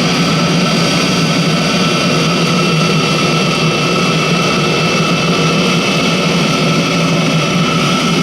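Chinese diesel heater running steadily, its combustion blower whining over an even rush of burning, while it burns a 50-50 mix of engine oil and diesel at a low pump setting.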